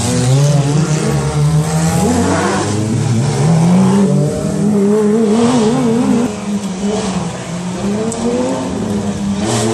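Rally car engine revving hard through a hairpin and passing close, its pitch climbing and falling with the throttle and wavering mid-way, then easing off after about six seconds.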